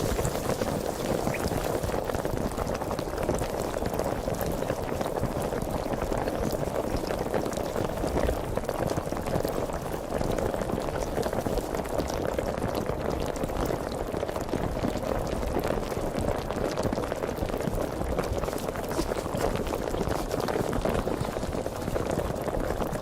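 Sparkling water fizzing steadily: a dense, even crackle of countless tiny bubbles bursting.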